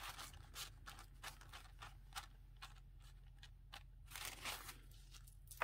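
Fabric being handled and loose threads pulled from its edge to fray it: faint, irregular small scratches and rustles, with a longer rustle about four seconds in.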